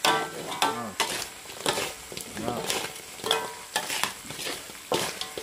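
Metal spatula and slotted ladle scraping and clinking against a steel wok as fried fish pieces coated in sambal are stirred and tossed, with a light sizzle of frying underneath. The scrapes come irregularly, several each second.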